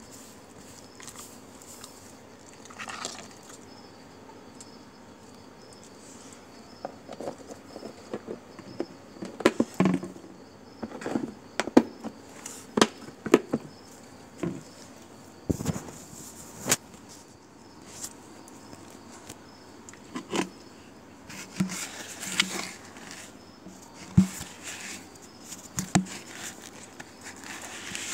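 A stray dog eating from a metal food tray on paving stones: irregular sharp licking clicks and knocks of the tray, busiest through the middle, over a faint, even, high-pitched chirring of insects.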